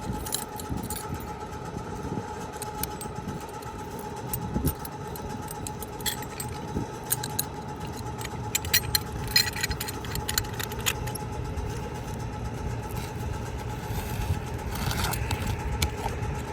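Steady engine hum throughout, like a vehicle idling nearby. A cluster of sharp clicks and scrapes comes about eight to eleven seconds in, from work on the asphalt shingle that is being trimmed to fit.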